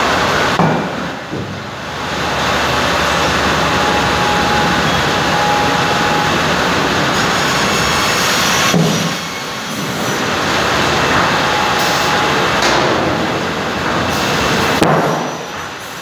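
Cursal TROA Ø550 automatic optimizing cross-cut saw line at work, its saw, feed rollers and conveyors running loud as boards are fed through, with clunks of wood and machinery. The din drops briefly three times.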